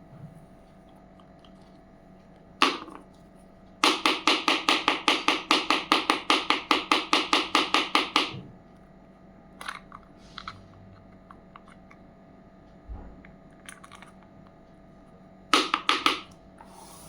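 Small plastic toy parts clicking: a single click, then a fast even run of clicks, about five or six a second for some four seconds, a few faint ticks, and a short run of four clicks near the end.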